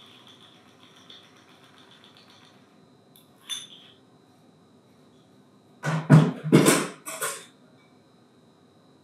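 Cocktail trickling faintly from a metal shaker through a fine-mesh strainer into a coupe glass, then a single clink, and about six seconds in a quick run of three or four loud knocks and clinks of metal bar tools.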